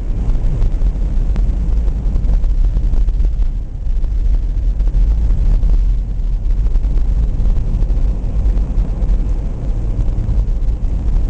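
Steady low rumble of a vehicle driving, heard from inside the cabin: engine and tyre noise on a snow-covered road.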